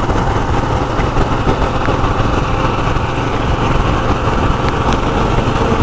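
Royal Enfield Himalayan's single-cylinder engine running steadily, with an even hiss of noise over it.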